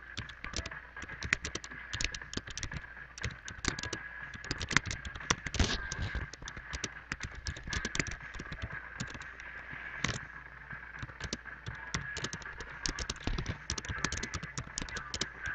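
Typing on a computer keyboard: quick, irregular key clicks, several a second, with brief pauses.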